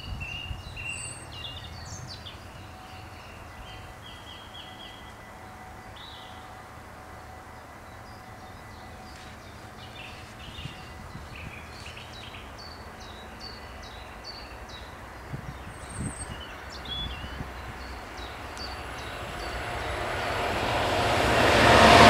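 Small birds chirping over a quiet outdoor background. In the last few seconds the rumble and rail noise of an approaching intercity train rise steadily, loudest at the very end as it reaches the crossing.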